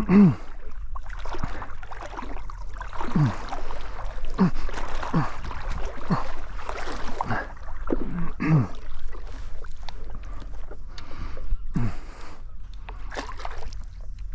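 Lake water sloshing and splashing against a stand-up paddleboard, with about eight short bloops, each falling in pitch, spread through the stretch.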